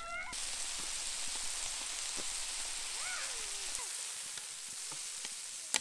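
Top sirloin steak and asparagus sizzling on a hot cast iron griddle: a steady frying hiss. A single sharp click comes near the end.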